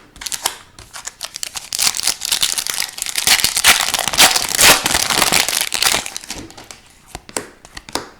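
A foil trading-card pack wrapper crinkling as it is handled and torn, loudest in the middle for about four seconds, with a few light card flicks before and after.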